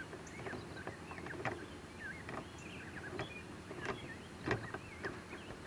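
A few faint, irregularly spaced clicks and knocks from a socket wrench working the generator's oil drain nut loose, with small birds chirping in the background.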